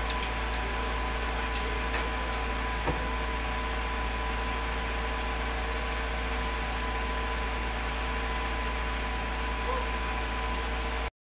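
Utility bucket truck's engine idling steadily, a low even rumble, with a single small click about three seconds in. The sound cuts out just before the end.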